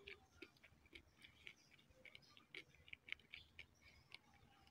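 Faint, irregular wet clicks of someone chewing a ripe fig close to the microphone.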